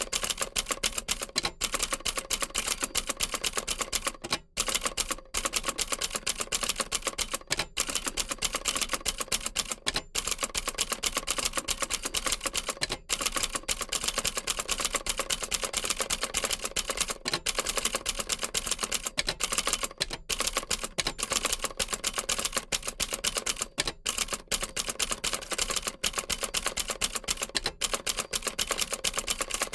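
Old manual typewriter being typed on steadily, a rapid stream of key strikes with only brief pauses here and there.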